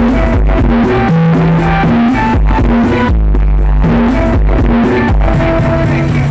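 Loud music with heavy, booming bass played through a large carnival sound system.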